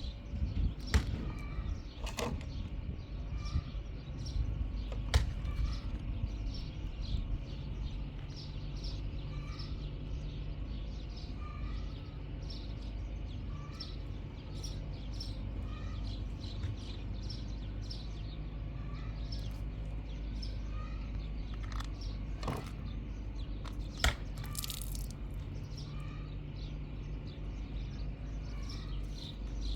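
Small birds chirping over and over in short, high notes, over a steady low rumble, with a few sharp knocks.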